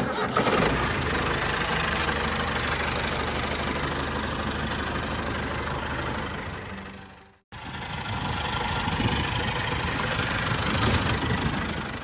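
Tractor engine starting suddenly and running steadily. It cuts off abruptly about seven seconds in, then runs again after a brief gap.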